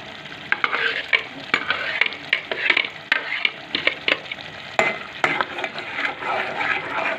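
Metal ladle stirring thick ground spinach into a potato and tomato masala in a metal pot, with irregular clicks and scrapes of metal on metal over the soft sizzle of the mixture cooking.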